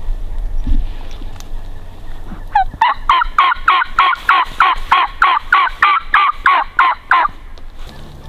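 Wild turkey hen yelping: a long, even run of about twenty loud yelps, about four a second, starting about two and a half seconds in and stopping near the end.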